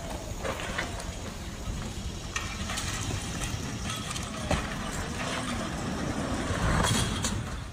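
Engine of a yellow wheeled construction machine idling with a steady low rumble, with scattered knocks. It grows louder about seven seconds in, as the steel lattice tower buckles and comes down.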